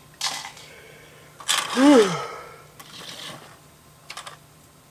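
A man's short, loud breathy vocal sound with a rise and fall in pitch, about a second and a half in. Near the end come a couple of small clicks from plastic LEGO pieces being handled.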